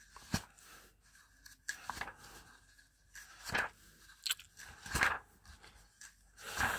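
Pages of a large hardcover book being turned in quick succession, a paper swish about once a second, six or seven in all.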